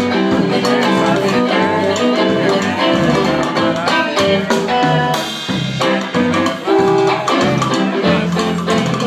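Live band playing an instrumental passage: electric guitar over a drum kit.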